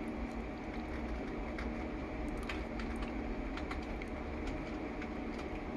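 Steady low electrical or fan-like hum with a few faint scattered ticks.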